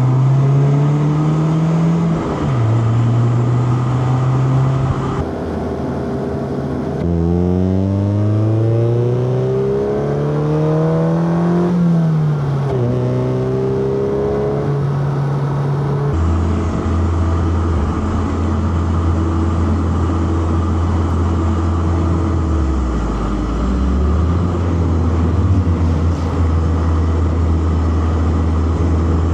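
Inline-four petrol car engine driven hard with a manual gearbox. The revs climb and drop through several gear changes, then hold at a steady, lower pitch, dipping briefly once about three-quarters of the way through.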